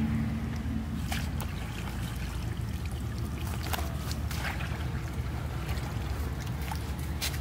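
Shallow muddy water splashing and trickling as a woven bamboo fish trap is dipped into a stream pool. A few short, sharp splashes come through over a steady low rumble.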